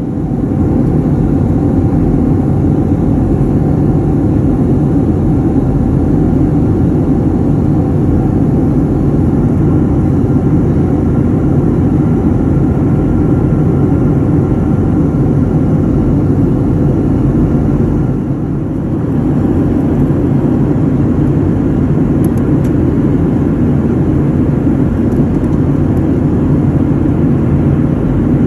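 Steady jet-airliner cabin noise: a Boeing 737's engines and rushing airflow heard from inside the passenger cabin in flight. There is a brief dip in level about 18 seconds in.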